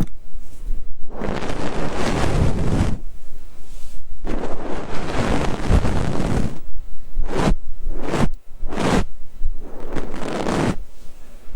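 Fluffy ear-cleaning stick brushing over the microphone's ear in soft, airy sweeps: a few long strokes of a second or two, a run of quick short strokes midway, then another long sweep.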